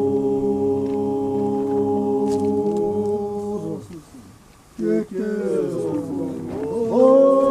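Chanting voices holding long, steady notes. They break off just before four seconds in and start again under a second later, the pitch now wavering and rising, and louder near the end.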